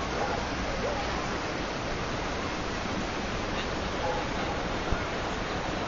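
Floodwater rushing, a steady hiss of fast-moving water, with a single brief knock about five seconds in.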